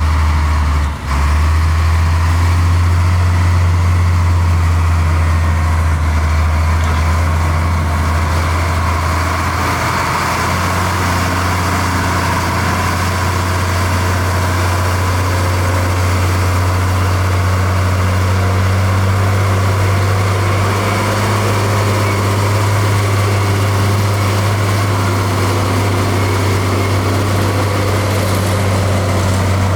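Heavy diesel engine of a dump truck or bulldozer running steadily with a deep, even hum, with a brief dip about a second in.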